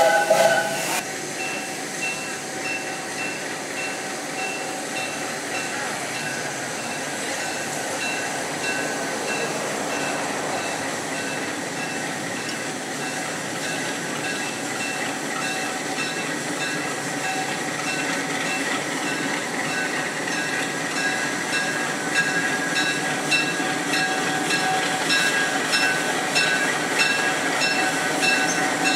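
Passenger train rolling along the track: a steady rumble with a regular clicking that comes faster near the end as the train picks up speed. A loud hiss cuts off about a second in.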